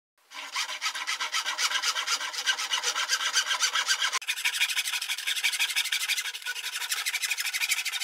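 Fine-toothed hand saw cutting through ½-inch CPVC plastic pipe in quick, even back-and-forth strokes. About halfway through, the rasp turns thinner and higher.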